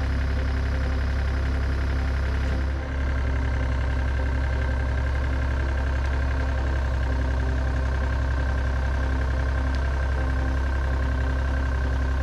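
Excavator's diesel engine idling steadily, with a brief dip in the sound about three seconds in.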